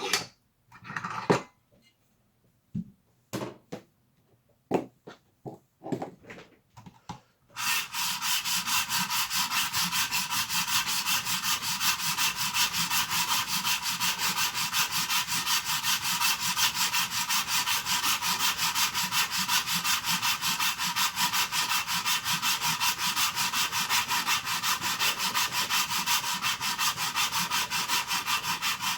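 A hand file scraping back and forth across hard plastic, taking off excess material after hacksaw cuts. It starts after a few separate knocks and clicks of handling, then about eight seconds in settles into a steady, rapid, even run of strokes.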